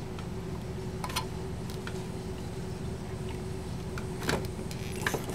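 A few light clicks and ticks as a soldered red wire is worked loose from a terminal on a metal radio chassis, the sharpest about four seconds in, over a steady low hum.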